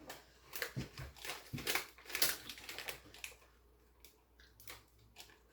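A person eating spicy instant ramen: a quick run of short slurping and chewing noises through the first three seconds, then quieter.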